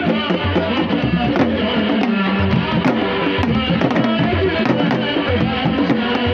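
Senegalese Serer music with drums and percussion under melodic instruments, playing continuously.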